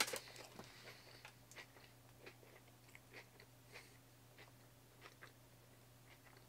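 Faint chewing of a mouthful of rice ball and potato chips: irregular soft crunches, about one or two a second, a little louder at first.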